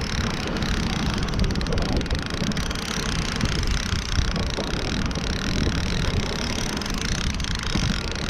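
Steady wind buffeting the microphone over the running of a boat's Mercury outboard motor as it trolls through choppy water.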